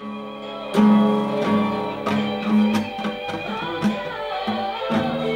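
Acoustic guitar being strummed, chords ringing out with repeated strokes; the first strong strum comes about three quarters of a second in.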